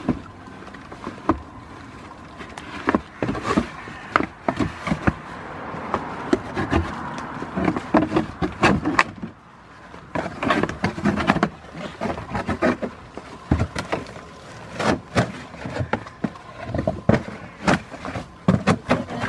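Cardboard box rustling, scraping and knocking irregularly as goats push their heads into it and shove it around.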